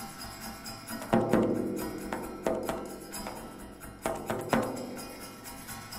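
Soundtrack music of sparse struck percussion: a handful of separate hits, each ringing on in pitched tones that fade away before the next.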